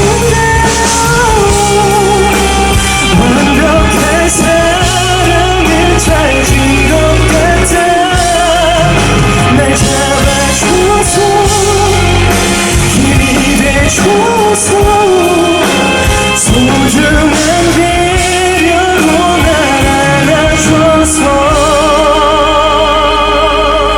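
Live pop ballad: a male vocalist singing long, wavering held notes with vibrato over a full band.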